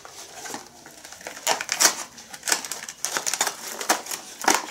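Clear plastic toy packaging being pried open, crackling and clicking irregularly.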